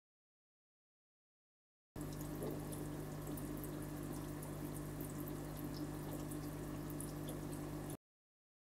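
Aquarium water trickling and dripping over a steady low hum, with faint scattered ticks. It starts abruptly about two seconds in and cuts off abruptly near the end.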